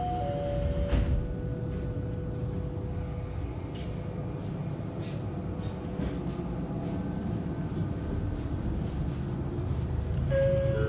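JNR KiHa 40 diesel railcar's engine running with a steady low rumble, heard from inside the car. There is a single sharp knock about a second in, and a short chime-like tone starts near the end.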